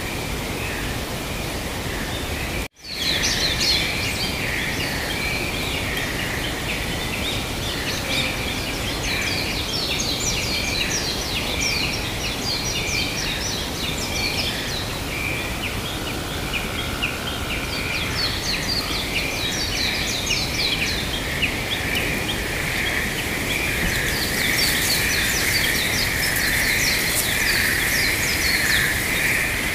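Many small birds chirping in quick, high calls over a steady hiss of outdoor background noise; the sound cuts out for an instant about three seconds in.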